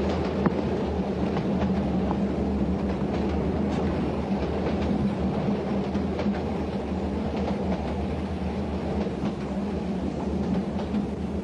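Railway carriage in motion, heard from inside: a steady low rumble of the wheels on the track, with a few faint clicks.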